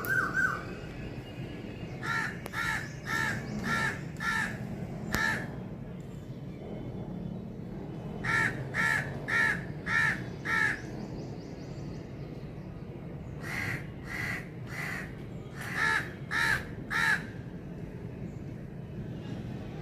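Crow cawing in three runs of about six or seven harsh caws each, roughly half a second apart, with pauses of a few seconds between runs.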